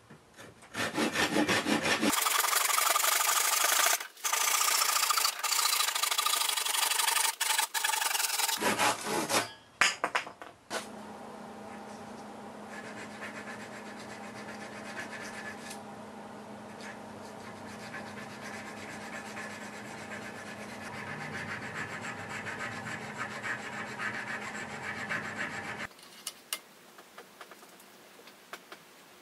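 A hand saw cutting through a block of osage orange wood clamped in a vise, loud rasping strokes for about the first ten seconds. Then a small file rasping on a brass knife guard, quieter and steadier, fading near the end.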